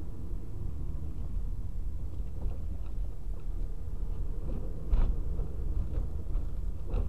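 Low, steady road and engine rumble inside a moving car's cabin, with small knocks and a louder thump about five seconds in and another near the end.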